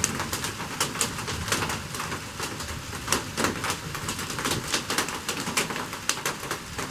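A bristle chip brush stroking epoxy onto the inside of a wooden tankard: many quick, irregular scratchy strokes.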